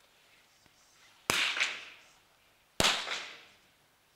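Two .22 rimfire smallbore target-rifle shots, about a second and a half apart, each sharp crack followed by a short ringing echo in the hall.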